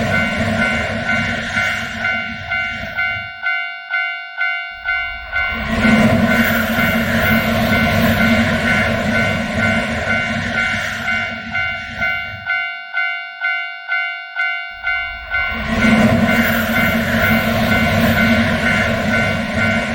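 Japanese level-crossing bell ringing its steady "kan-kan", about one and a half strikes a second. Through most of it a train passes with a loud rumble and rush. That passing noise drops away twice for a few seconds, leaving the bell ringing on its own.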